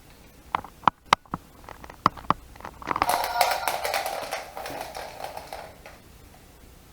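Wind-up spinning top toy: a handful of sharp clicks, then about three seconds of rattling whir as it spins against the surface, fading out.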